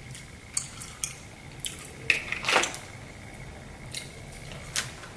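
Sharp clicks and clacks of hard lobster shell being picked apart by hand to get the meat out, with eating sounds; a longer, louder noise comes about halfway.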